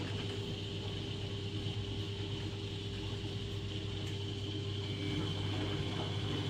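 Samsung front-loading washing machine running with a steady low mechanical hum and a faint high whine over it.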